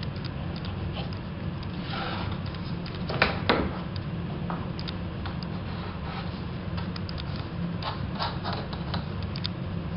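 Laminate flooring pieces being handled and fitted on a stair tread: rubbing and scraping with scattered light knocks, two louder knocks about three and a half seconds in, over a steady low hum.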